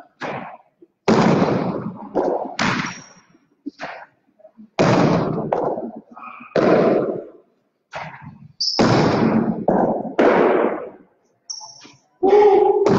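Jai alai balls cracking hard against the court walls and floor as players rally with cestas. About seven loud, sharp impacts, each ringing on in a long echo around the hard-walled court.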